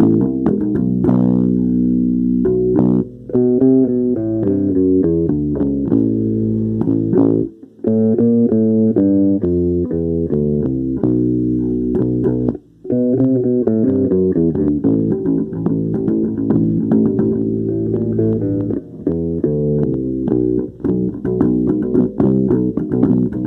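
Instrumental music with plucked low string notes, likely bass and guitar, playing changing note patterns. It breaks off briefly about 3, 8 and 13 seconds in.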